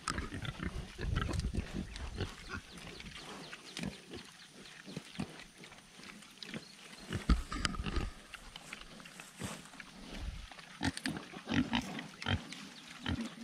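A sow and her three-week-old piglets grunting as they eat apples at close range, with irregular short crunching and chewing noises throughout and a few louder grunts.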